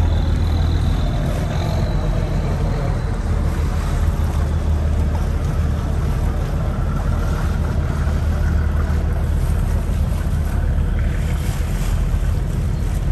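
Tour boat's engine running with a steady low rumble, with wind blowing across the microphone.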